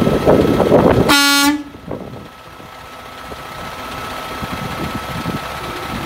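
Cement mixer truck's air horn pulled by its overhead cord: one short, loud blast about a second in, with the truck's engine idling underneath.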